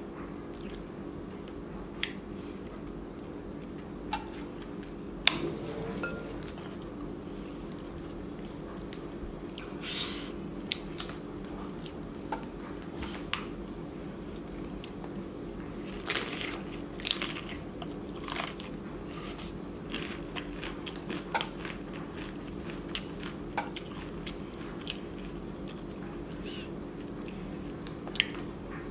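Close-up crunching and chewing of crisp corn tostadas loaded with ceviche, in scattered bites with a thick run of crunches about halfway through, over a steady low hum.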